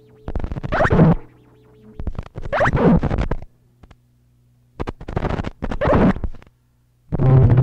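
Harsh noise music: a series of blasts of dense, scratchy electronic noise, some with pitched squeals sliding inside them, cut apart by short gaps. A steady low hum carries on beneath the gaps.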